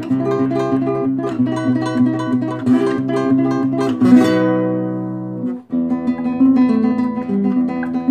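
Classical guitar played fingerstyle: rapid repeated picked notes over held bass notes, with a strummed chord about four seconds in. The sound cuts out for a moment just before six seconds, then the fingerpicked melody starts again.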